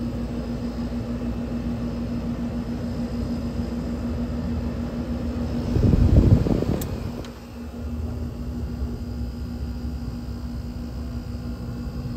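Friedrich Powermiser Century series window air conditioner with a Matsushita rotary compressor running on high fan: a steady hum with one constant low tone. About six seconds in there is a brief louder rumble, then a click, after which it runs a little quieter.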